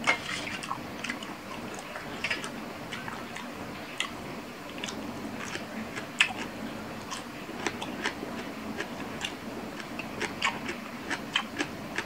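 A person chewing crisp lotus stems and shrimp from a spicy Thai salad, close to the microphone: irregular crunches and wet mouth clicks a second or so apart.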